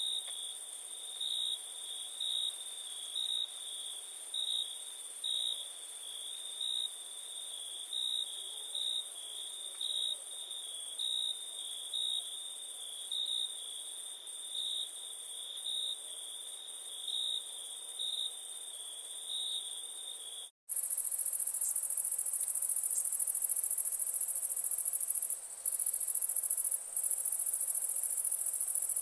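Night insects: a cricket chirping in even pulses about once a second over a high insect hiss. About two-thirds of the way through, this cuts abruptly to a louder, continuous, very high insect drone.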